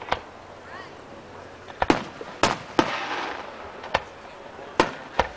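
Aerial fireworks shells bursting: about eight sharp bangs at uneven intervals, with a quick cluster of four between about two and three seconds in. The bang near three seconds trails off in about a second of noisy rumble.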